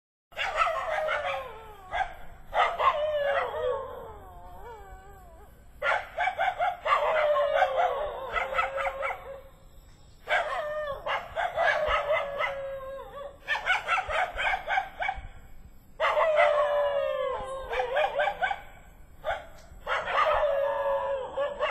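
Dog howling in long, drawn-out wails that slide down in pitch at the end, about seven howls with short breaks between them.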